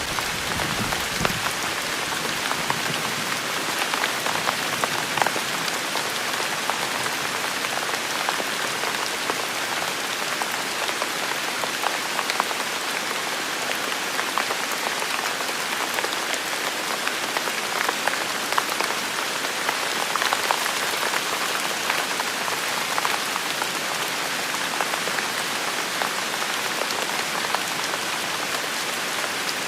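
Steady rain falling on hard surfaces, an even hiss dotted with scattered sharper drop hits. The low tail of a thunder rumble fades out in the first second or two.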